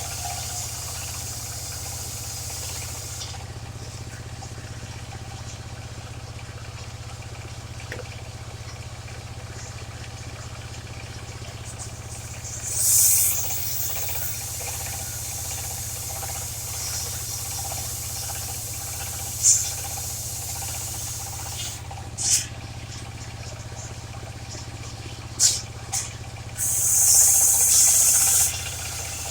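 Engine-driven mobile circular sawmill running steadily, its blade cutting into waru timber in short spells of loud hissing noise. There is one cut about midway and a few brief ones later, then a longer cut of about two seconds near the end.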